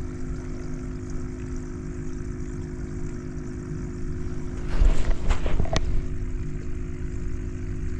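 Steady motor hum holding a few even tones, with a short burst of rustling and sharp knocks about five seconds in as the fish and scale are handled.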